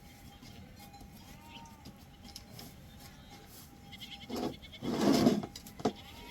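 Goat bleating twice near the end, a short call and then a longer, louder one.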